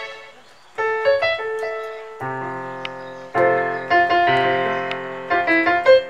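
Roland XPS-30 synthesizer keyboard played with a piano sound: chords and single notes struck every second or so and left to ring and fade.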